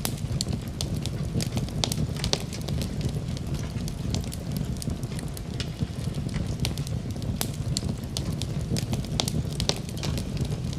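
Wood fire burning in a fireplace: a steady low rumble of flame with frequent sharp crackles and pops scattered irregularly throughout.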